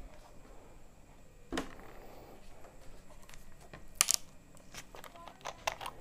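Plastic Pulpy Orange bottle being handled and its screw cap twisted open: scattered sharp plastic clicks and crinkles, the loudest about four seconds in, then a quick run of smaller clicks.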